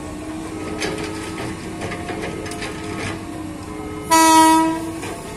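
KRL commuter electric train's horn, one short loud blast about four seconds in, over steady background tones and a few faint clicks.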